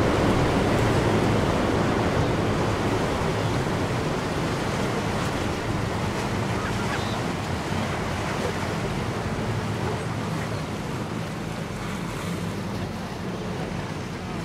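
Steady rushing of sea waves and wind with a faint low hum underneath, slowly getting quieter.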